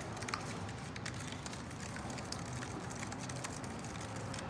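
A spoon stirring pineapple juice mixed with sugar and yeast in a plastic cup, with many small irregular clicks and scrapes as it knocks against the cup wall.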